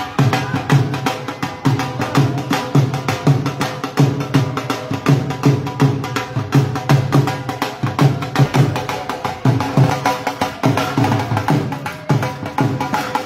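Procession music: fast, steady drumming with a deep beat about two to three times a second, over a held note.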